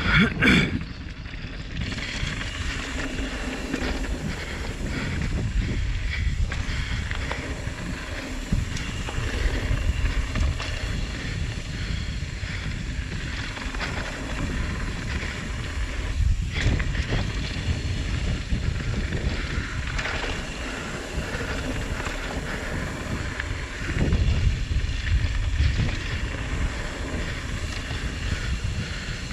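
Mountain bike descending a dirt trail at speed: wind rushing over the microphone and tyres rolling over the dirt, with occasional knocks and rattles as the bike hits bumps.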